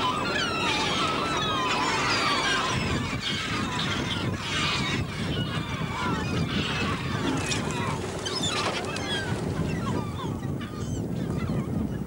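A large flock of gulls calling, many short cries overlapping, thickest in the first few seconds and thinning out toward the end, over a steady low rumble.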